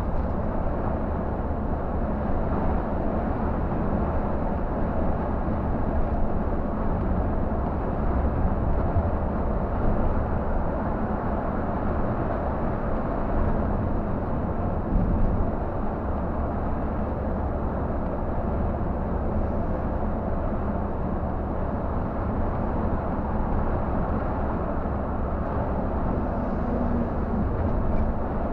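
Scania K124 bus's rear-mounted six-cylinder diesel engine droning steadily at highway cruising speed, with road and tyre noise, heard from inside the cab.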